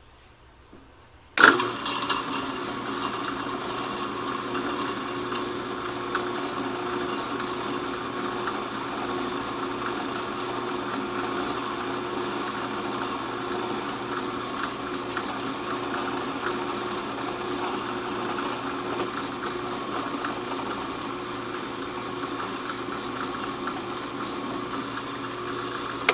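Drill press switched on about a second and a half in and running steadily with a machine whine and hiss as a twist drill bit cuts the gas port through a steel rifle barrel.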